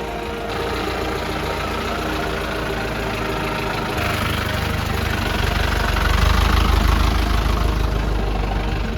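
Four-wheel-drive jeep engine running, getting louder from about four seconds in.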